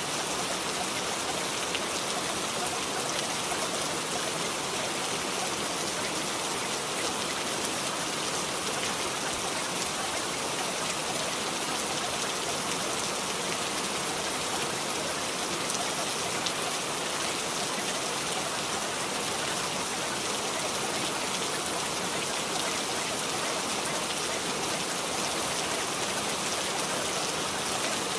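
Steady, continuous rain: an even hiss of falling rain with no breaks.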